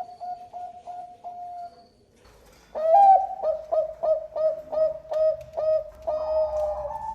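Zebra dove (Bangkok perkutut) cooing: a run of short, rapid notes that trails off about two seconds in, then after a brief pause a louder series of staccato coos, about three a second, ending in a longer rolling note.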